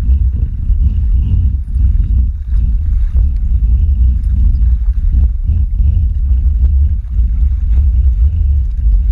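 Loud, unsteady low rumble of wind buffeting a camera microphone that is racing down a zipline cable.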